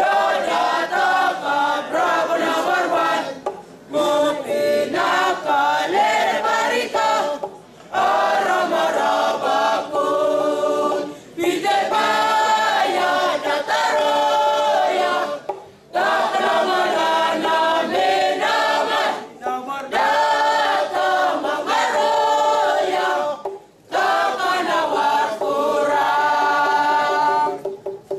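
A group of voices singing unaccompanied, in phrases of about four seconds, each followed by a short pause for breath.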